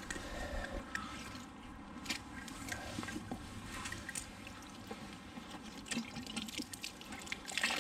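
Water dripping and trickling as a wet magnet-fishing rope is hauled up out of the water, with rustling and scattered light knocks.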